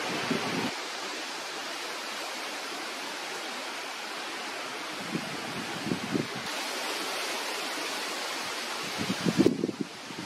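Steady rush of wind, with a few low gusts buffeting the microphone, the strongest near the end.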